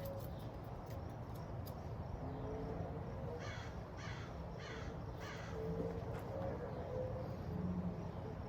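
A bird calling four times in a row, the calls about half a second apart, a little over three seconds in.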